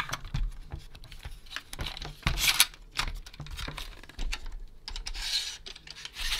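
Handling noise from an opened vintage plastic periscope toy with a metal tape inside: scattered clicks and knocks of the housing and parts, with two longer rubbing scrapes, about two and a half and five seconds in, as the freed metal tape is slid along its track.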